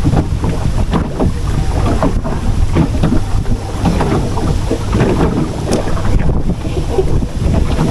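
Wind buffeting the microphone, a steady heavy rumble, with faint scattered rustles and light knocks above it.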